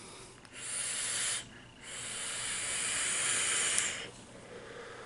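Air hissing through an e-cigarette as it is drawn on: a short pull about half a second in, then a longer draw of about two seconds, fading near the end.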